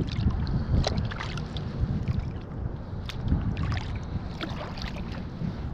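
Water splashing and sloshing as a pompano held by the tail thrashes at the surface, with scattered short splashes over a steady low rumble of wind on the microphone.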